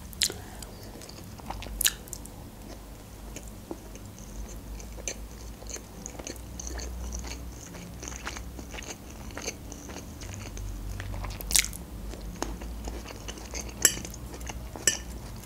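Close-miked chewing and mouth sounds of a person eating fusilli pasta with cheese, with a few sharp clicks scattered through, the loudest about 11 and a half seconds in.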